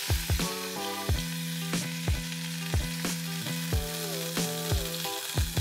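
Butter sizzling as it starts to melt in a stainless steel saucepan on the hob, under background music with a steady drum beat and a simple melody.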